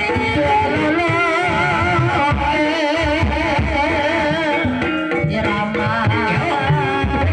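Live ebeg dance music: a singer holding long notes with a wide vibrato over a rhythm of hand drums and other instruments.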